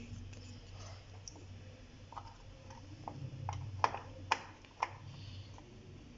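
RAM modules being handled and fitted into motherboard DIMM slots: several small, sharp clicks and taps at uneven intervals, the loudest about four seconds in, over a low steady hum.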